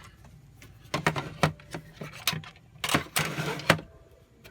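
Clicks, knocks and light rattling of a multimeter and small parts being handled on a workbench, with a brief rustling scrape about three seconds in.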